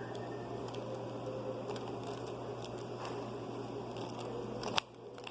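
Paper and tape being handled at close range: a steady rustling noise over a low hum that stops with a sharp click near the end.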